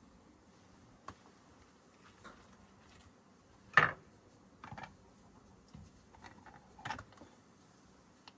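A few scattered clicks and knocks of handling, the loudest a sharp knock about four seconds in and another near the end.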